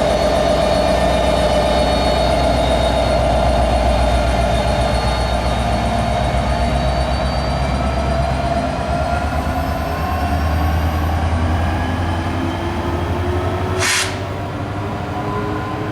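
A train running past at close range, a steady loud rumble with engine and wheel tones slowly falling in pitch. A short sharp hiss comes near the end.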